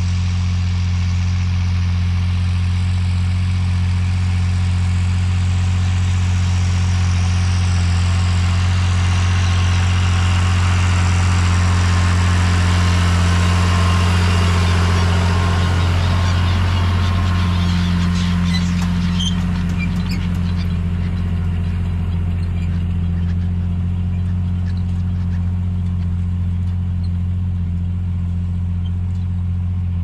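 Tractor's diesel engine running steadily under load while pulling a plough, a deep even hum.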